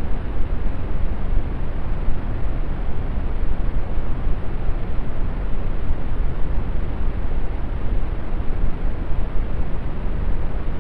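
Steady brown noise: an even, unbroken rushing hiss, heaviest in the bass and falling away in the highs, with no changes.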